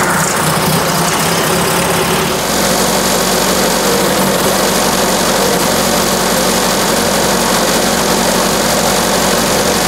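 The 1966 Triumph Spitfire's 1147cc four-cylinder engine runs at a fast idle of about 1400 RPM on full choke just after starting. Its note shifts about two and a half seconds in, then holds steady.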